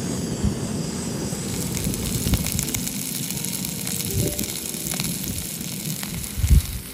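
Snow Peak backpacking stove burning on a Primus gas canister with a steady hiss, with a single thump near the end.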